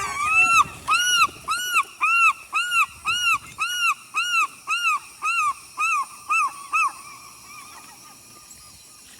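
A seagull giving its long call: a series of about fourteen loud, arched notes, roughly two a second, that ends about seven seconds in.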